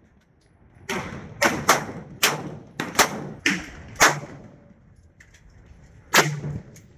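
A quick, irregular string of about eight sharp cracks over some three seconds, then a single further crack near the end.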